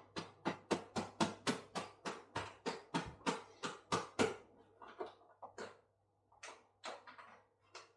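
A bag of self-raising flour shaken over a mixing bowl to pour flour out: a quick run of crisp rustling shakes, about three to four a second, that thins to a few scattered shakes after about five seconds.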